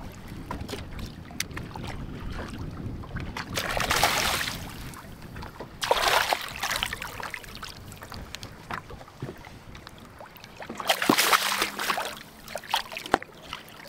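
A hooked largemouth bass splashing and thrashing at the water's surface beside a boat, in three loud bursts: about four seconds in, at about six seconds, and again near the end, over a steady low wind and water rumble.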